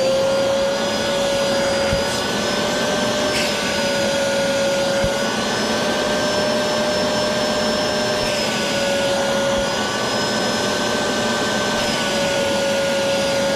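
Ridgid portable wet/dry shop vacuum running steadily through its narrow detailing-kit hose: a high motor whine with rushing airflow. The whine shifts slightly in pitch a few times while a round foam pad is held on the nozzle by suction.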